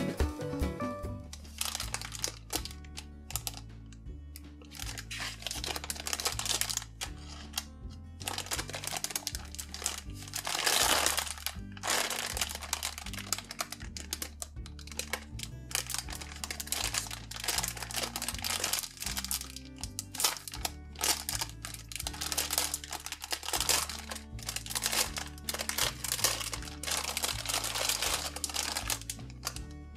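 Plastic packaging bag crinkling and rustling as hands handle and open it around a foam pumpkin squishy, with a longer, louder crinkle about eleven seconds in. Background music with a steady bass line plays throughout.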